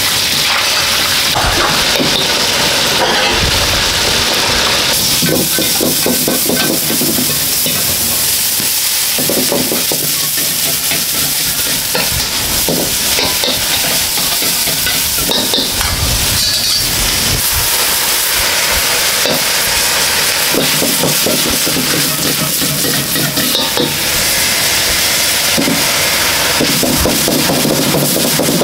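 Food sizzling loudly as it is stir-fried in a hot wok, with a metal ladle scraping and knocking against the pan again and again.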